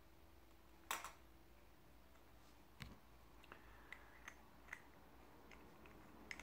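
Small clicks and ticks of the brass parts of a Broadside-clone mechanical vape mod being handled and screwed together: one sharper click about a second in, then several faint ticks.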